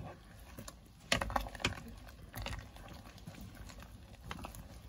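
A spatula knocking and clunking against a pot and the vegetables in it as eggplant pieces are pushed down into the sinigang broth: irregular taps, a cluster of them about a second in and a few more later.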